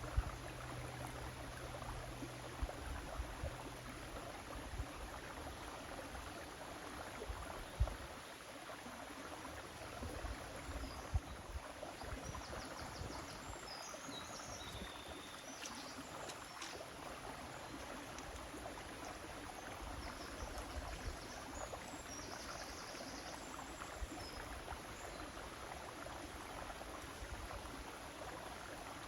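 River water flowing steadily, with a few short low thumps in the first half and faint high chirps around the middle.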